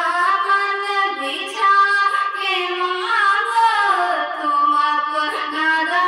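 A high female voice singing a naat, unaccompanied, holding long notes that slide up and down in pitch.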